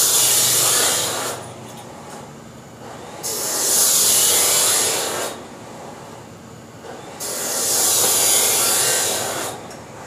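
Three bursts of a high, hissing rasp, each about two seconds long with short pauses between: a tool working on a steel pipe section of a motorcycle exhaust header as it is shaped for joining.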